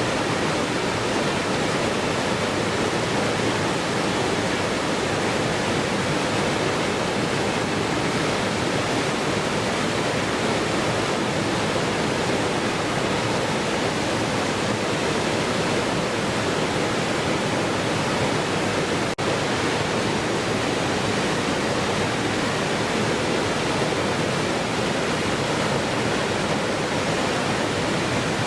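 Waterfall: steady, even rushing of falling water with no change in level, broken only by a split-second dropout about two-thirds of the way through.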